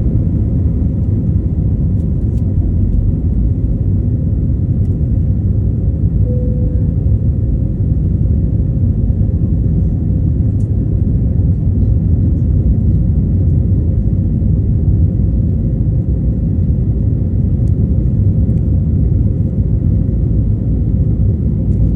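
Steady low rumble of an Airbus A321LR Neo in flight, engines and airflow heard from inside the economy cabin.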